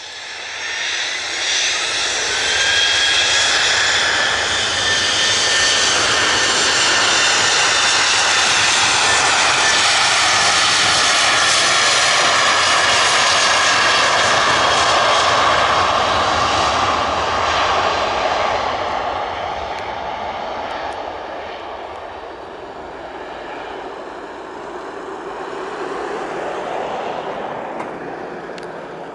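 Twin jet engines of a Ryanair Boeing 737-800 spooling up to takeoff thrust: a rising whine about a second in, then the loud, steady jet noise of the takeoff roll as it passes. Over the last ten seconds the sound falls in pitch and fades as the jet accelerates away.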